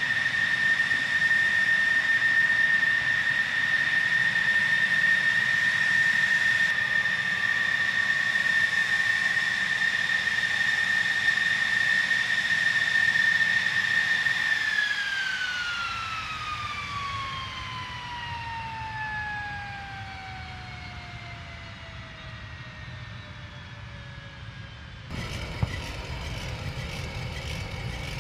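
F-16 fighter's jet engine with a steady high-pitched whine that, about halfway through, falls steadily in pitch and fades as the engine spools down after shutdown. Near the end the sound cuts abruptly to a lower steady rumble with a single sharp click.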